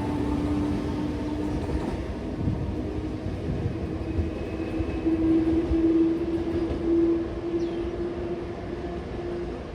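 Tze-Chiang express train hauled by an E500 electric locomotive, running on the rails with a steady rumble and a hum that rises slightly in pitch about halfway through.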